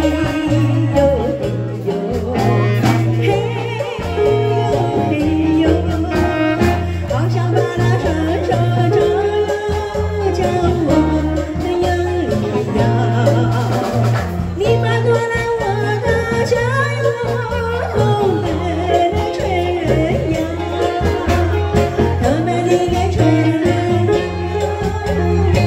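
A woman singing a song into a microphone over instrumental accompaniment with a steady bass line.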